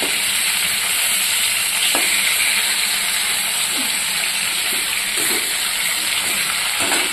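Fish pieces sizzling as they shallow-fry in hot oil in an aluminium kadhai: a steady hiss with a few faint clicks.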